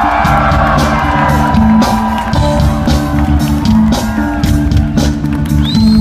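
Rock band music with a repeating bass line and drums. The crowd shouts and whoops over it in the first second or so, and a high whistle starts right at the end.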